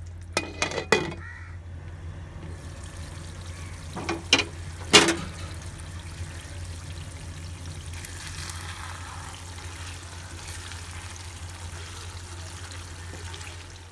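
Choris chilli fry (Goan sausage, onion and potato in a red gravy) simmering and sizzling in a wok, a fine even hiss. A glass lid clatters onto the pan near the start, and a few sharp knocks of cookware come about four to five seconds in, over a steady low hum.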